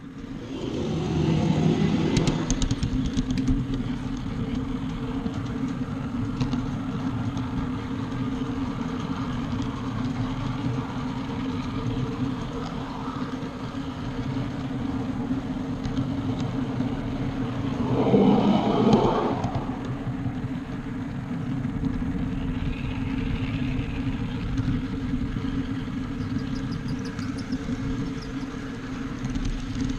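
Ride-on backyard-scale train running along its track, a steady mechanical drone of the locomotive and its wheels on the rails. About two-thirds of the way through there is a brief, louder burst of noise.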